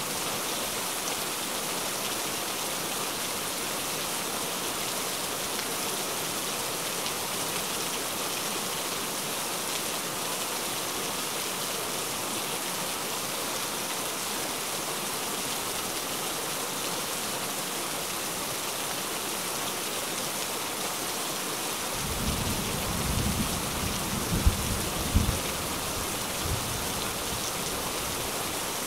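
Steady rain, joined about three quarters of the way through by a low rumble of thunder with two sharp cracks in it, which dies away a few seconds later.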